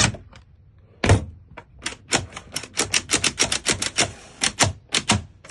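Rapid, irregular run of sharp clicks, about five a second, from a screwdriver tightening the lock's mounting screws, with one louder click at the start.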